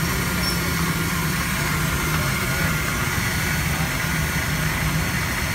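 Steady low mechanical hum of running machinery, with a constant hiss over it.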